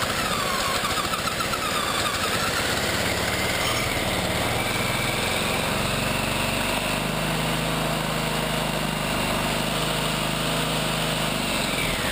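GX200-clone single-cylinder engine fitted with a 3D-printed Roots supercharger catches on gasoline poured by hand into the intake. It runs on its own steadily for several seconds with a whine above the engine note, then stops near the end. It runs once it is fed fuel by hand: a fuel-starvation problem, the stock carburetor not supplying enough.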